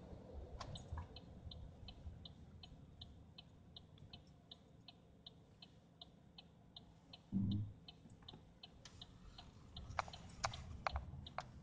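Car turn-signal indicator ticking steadily in the cabin, about two to three ticks a second, as the car turns out onto the road. A dull thump comes about seven seconds in, and a few sharper clicks come near the end.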